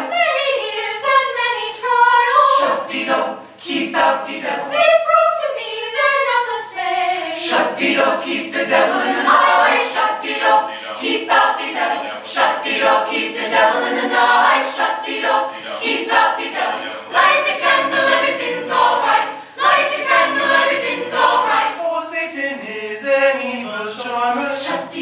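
Small mixed choir of young men and women singing a cappella in several parts, the voices moving together in harmony.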